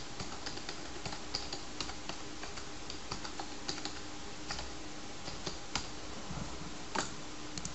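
Typing on a computer keyboard: irregular key clicks, a few louder strokes among them, over a faint steady hum.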